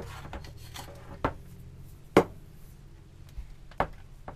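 Handling noise from a plastic heat gun and its cord: four or five sharp clicks and knocks, the loudest about two seconds in, with the heat gun not yet switched on. A low steady hum runs underneath.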